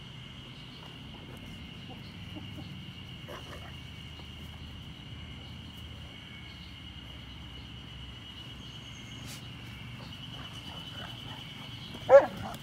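A Newfoundland dog lets out one short, loud bark about twelve seconds in as the two dogs tussle. A steady high drone runs throughout.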